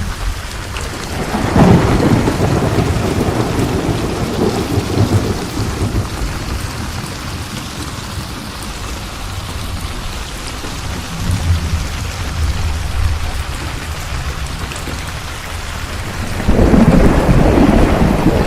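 Steady rain with thunder rumbling: a roll swells about a second and a half in and dies away over several seconds, and another begins near the end.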